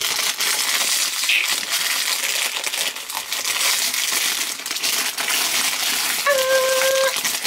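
Clear plastic packaging crinkling and crackling as it is torn open and crumpled by hand to unwrap a new inhaler spacer.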